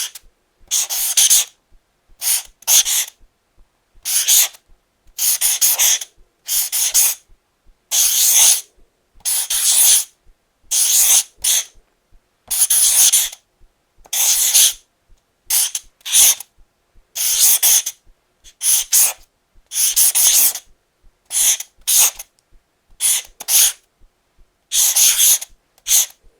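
Felt tip marker drawing strokes on paper: a long series of short, scratchy swishes, each a fraction of a second to about a second long, with brief pauses between them and some strokes broken into several quick parts.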